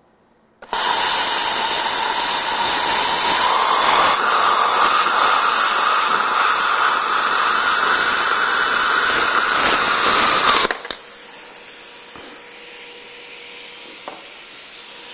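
Plasma cutter torch arc cutting through thick-wall 4130 chrome moly steel tube: a loud, steady hiss that starts suddenly just under a second in and cuts off suddenly about ten seconds later. After it stops, a much fainter steady hiss carries on.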